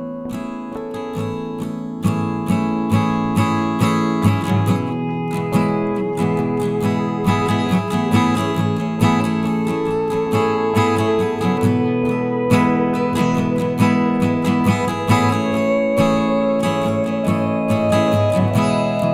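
Background music: acoustic guitar, plucked and strummed, with the playing getting fuller about two seconds in.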